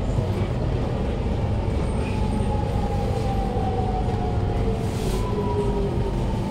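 Siemens C651 train's traction motors whining with a slowly falling pitch as the train slows under regenerative braking, over a steady rumble of wheels on rail, heard inside the carriage. The whine is softer than usual because the train is braking at only half regenerative power.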